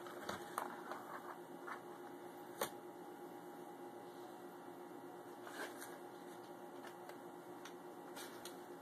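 Faint scratching and rustling of a cat rubbing and pawing at a corrugated-cardboard scratcher pad, with scattered light clicks and one sharper tap a little over two and a half seconds in, over a faint steady hum.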